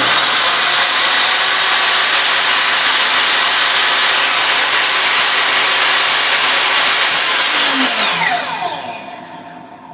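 FortG 1800 W bench circular saw switched on and running free without cutting, very loud, with a high steady whine over the motor noise. About seven seconds in it is switched off and winds down, its pitch falling as it coasts to a stop.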